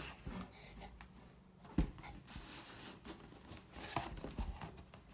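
Packaging and an iFixit Pro Tech Toolkit case being handled while unboxed: soft rubbing and rustling, with a light knock a little under two seconds in and another about four and a half seconds in.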